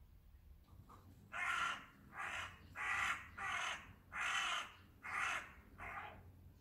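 A crow cawing in a steady series: seven caws at an even pace, starting about a second in.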